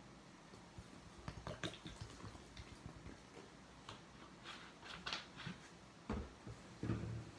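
Faint wet squishing and crackling of a sponge soaked with Comet cleanser and water being squeezed, in irregular short squishes with a few louder ones near the end.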